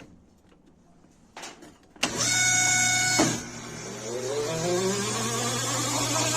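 Washing machine starting its spin. After a faint click, a steady electronic tone sounds for about a second, about two seconds in, over a low steady hum. The drum motor then speeds up, its whine rising in pitch.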